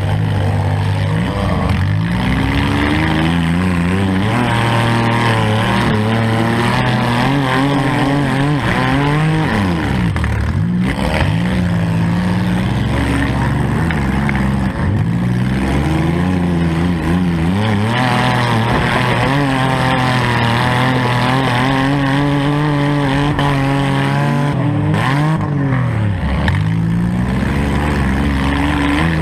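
Four-cylinder demolition derby car engine revving hard, its pitch rising and falling over and over as the throttle is worked. Several times it drops sharply and climbs straight back up.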